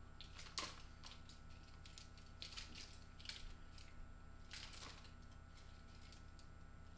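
Faint clicks and light metallic knocks of two revolvers being spun and handled in both hands, scattered through, the clearest about half a second in, over a low steady hum.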